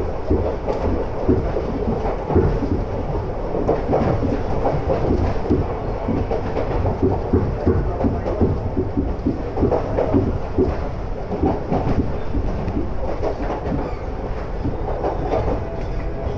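Iga Railway electric railcar, a rebuilt former Tokyu car, running at speed, heard from inside the passenger car. A steady rumble with frequent short clacks of the wheels on the track.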